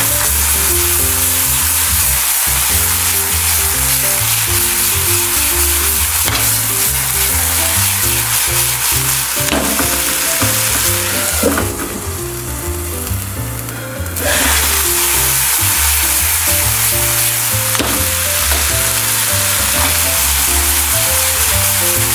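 Chicken gizzards and green onions sizzling in a frying pan. The sizzle drops away for a couple of seconds about halfway through, then comes back as strong as before. Background music with a melody and a low bass line plays throughout.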